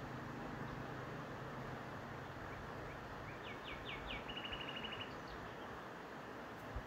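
Faint, steady woodland background hiss with a small songbird singing once about halfway through: four quick down-slurred notes, then a fast even trill.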